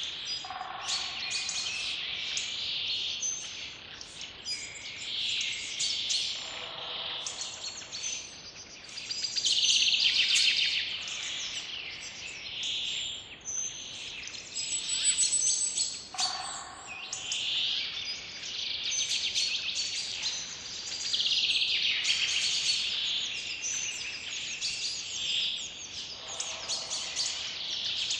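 Chorus of songbirds chirping and singing without a break, with many overlapping high chirps and warbles. A lower call sounds four times, several seconds apart.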